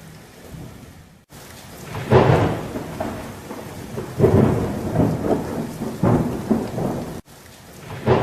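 Thunderstorm: heavy thunder rumbles roll in about every two seconds over steady rain, with the sound cutting out briefly twice.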